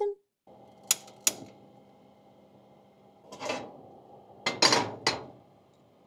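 Frying pan and kitchen utensils being handled: two sharp clicks about a second in, then a few clattering knocks over a steady hum.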